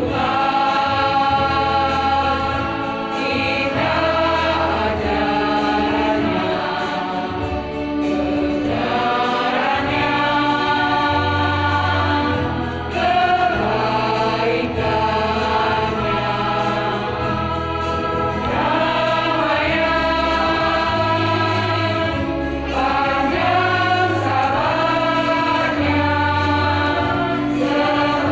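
Women's church choir singing in parts, many voices together, with a keyboard accompaniment holding low bass notes underneath.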